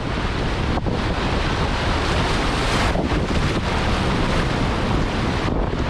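Strong wind buffeting the microphone, over a steady rush of water.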